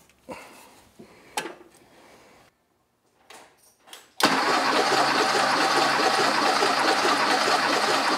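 1977 Porsche 911 Turbo's air-cooled 3.3-litre flat-six cranked over on its starter for about four seconds, starting about four seconds in, for a compression test on cylinder 4. The spark plugs are out, so the engine spins evenly and does not fire. Before that there are light clicks and rattles as the gauge hose is fitted into the plug hole.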